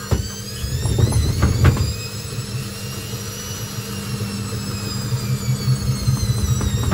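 Hoover VisionTech washing machine spinning up: the motor whine rises in pitch and then levels off over a pulsing low rumble. Several knocks come in the first two seconds as the machine bangs about. This is the run whose suspension the uploader says is screaming for help.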